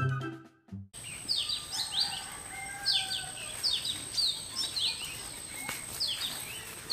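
Background music cuts off about a second in. Then birds chirp in repeated quick downward-sweeping calls over a steady, thin high-pitched tone.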